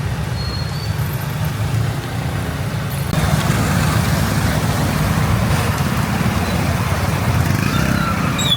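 Road traffic on rain-wet streets, heard from a moving motorbike: a steady low rumble, and about three seconds in a louder hiss joins it and holds.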